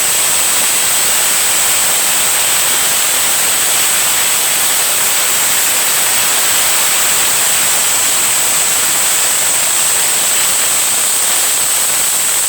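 Pressure cooker whistle valve venting steam in one long, unbroken whistle: loud hiss with a steady high tone over it.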